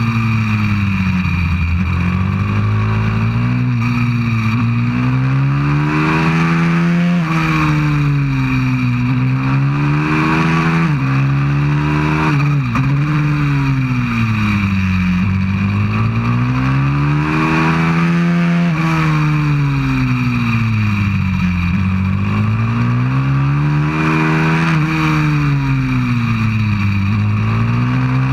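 A 190cc pit bike's single-cylinder four-stroke engine, heard from on board at speed: the revs climb and fall again and again as the bike accelerates out of bends and slows into them, with a few sudden dips in pitch. A steady rush of wind runs underneath.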